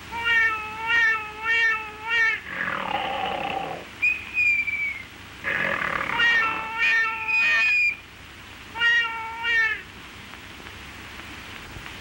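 Cartoon soundtrack of high, wavering, meow-like cries, repeated as short notes in runs of two to four. Noisy swooping sounds and a short whistle-like tone come between the runs.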